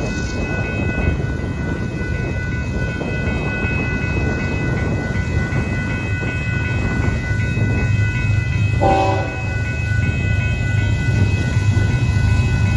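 Union Pacific freight train of hopper cars rolling past with a steady low rumble, over a set of steady high-pitched tones. About nine seconds in comes a short pitched blast lasting under half a second.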